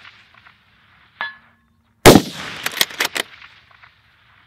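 A single rifle shot from a Ruger Precision Rifle about two seconds in, followed by a tail of echoes. A short metallic ring of a hit steel target sounds about a second in and again at the very end.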